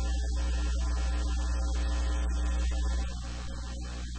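Steady electrical mains hum, a low buzz with many evenly spaced overtones and a thin high whine above it, dropping somewhat in level about three seconds in.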